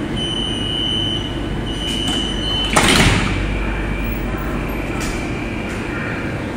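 Passenger doors of a Chinese high-speed train closing: a high warning beep sounds in several stretches, then about three seconds in the sliding plug doors shut with one sudden loud rush and thud.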